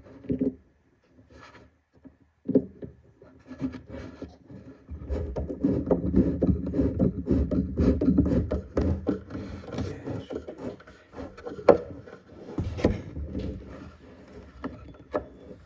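Wooden furniture parts and hardware being handled during assembly: scattered knocks and clicks, with a stretch of continuous scraping and rubbing of wood from about five seconds in until about twelve seconds, then a sharp knock.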